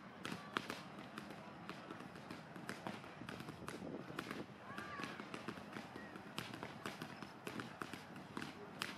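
Indistinct chatter of people in the background, with many scattered short clicks and taps.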